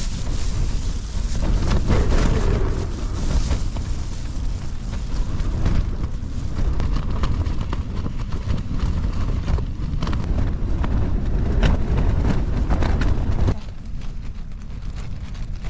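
Strong wind gusting over the microphone and buffeting a lightweight tent, with a heavy low rumble and sharp snaps of the flapping fabric; the gusts ease off near the end.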